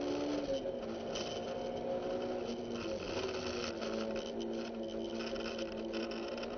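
Honda S2000's inline-four engine heard from inside the cabin as the car slows, its pitch stepping down about half a second in and again near three seconds. Scattered ticks and rattles sit over the engine.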